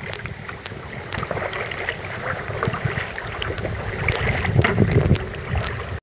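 Water splashing and sloshing against the hull of an outrigger canoe (va'a) as it is paddled, with irregular splashes from the paddle strokes, over a low rumble of wind on the microphone.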